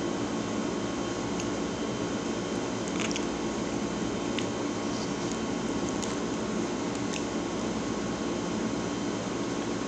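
Close-up eating sounds: a fork clicking a few times against a plastic container and chewing of a chocolate waffle, over a steady background hum.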